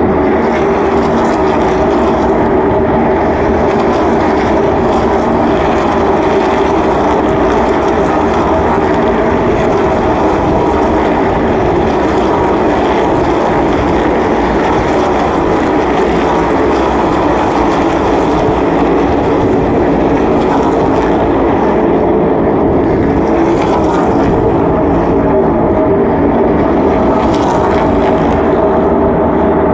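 NASCAR Cup stock cars' V8 engines running around the oval, a loud steady drone of many engines at once, swelling briefly a couple of times near the end as cars pass closer.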